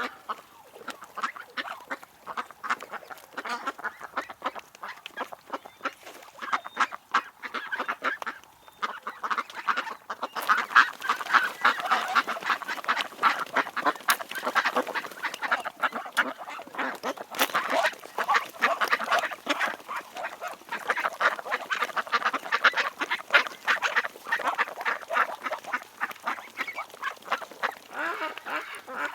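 A flock of ducks quacking continuously on a pond, many short calls overlapping throughout.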